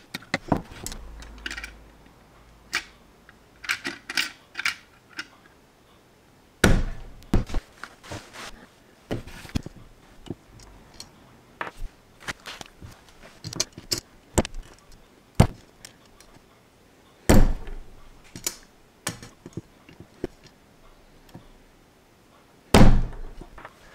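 Steel tweezers clicking and tapping against small plastic LEGO bricks and the tabletop, with bricks being set down and pressed onto the model in irregular light clicks. Three heavier thumps stand out, about seven seconds in, around seventeen seconds in and near the end.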